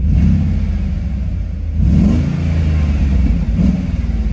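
Audi RS6's 4.2-litre twin-turbo V8 running and being revved, its pitch rising about two seconds in.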